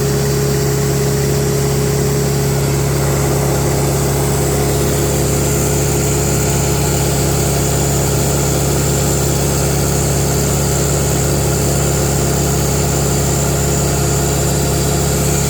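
Engine of a 1965 Lincoln SA-200 red-face engine-driven welder running steadily, just brought to life after hard starting on ether.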